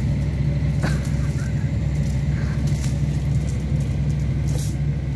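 Hitachi hydraulic excavator's diesel engine running steadily at idle, a constant low drone.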